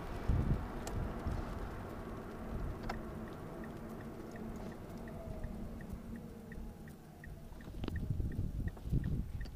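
Wind buffeting and tyre rumble on a camera mounted on a car's exterior beside the front wheel, fading as the car slows. A faint high ticking, about three or four a second, runs through the second half, and a few sharp clicks come near the end.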